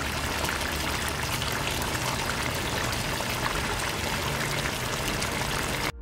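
Chicken curry sauce simmering in a pot: a steady, dense bubbling with fine crackles.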